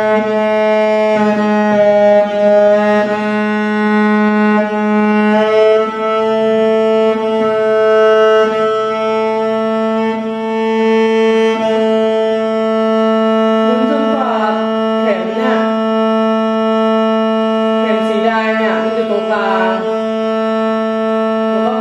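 Cello's open A string bowed in a long sustained note near 220 Hz while it is being tuned. The pitch shifts slightly a few times in the first several seconds, then holds steady once the string sits in tune at A.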